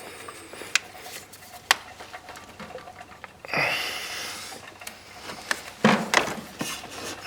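Hand work on an ATV starter: a few sharp clicks and knocks of parts and tools, spaced out, with one heavy breath out about three and a half seconds in.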